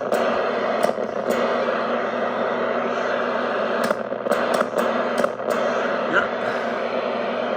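Steady hiss and hum from a running Crosley BC-654A radio set, with sharp clicks as its microphone's press-to-talk switch is keyed, several in quick succession about four to five and a half seconds in.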